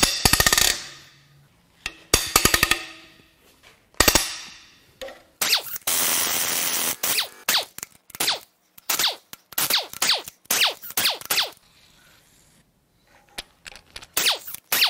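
Head bolts on a Vortec 454 big-block Chevy cracking loose under a breaker bar: three sharp metallic bangs with ringing, about two seconds apart. Then an air impact wrench runs steadily for about two seconds, followed by a string of short bursts as it spins the bolts out.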